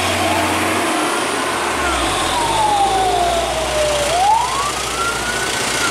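A siren wails, its pitch sweeping slowly down and back up over a few seconds, over the low rumble of a heavy truck's engine.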